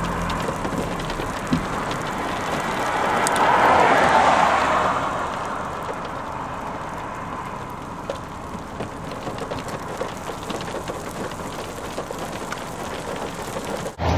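Steady rushing noise of wind and road traffic heard from inside a car. A louder rush rises and fades about four seconds in, and faint scattered ticks follow.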